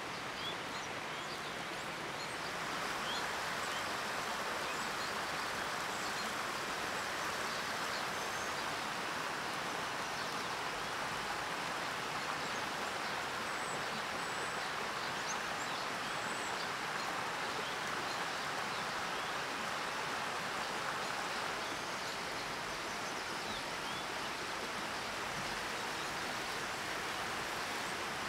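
Steady rushing outdoor ambience with faint, short high chirps scattered through it; it grows a little louder about three seconds in.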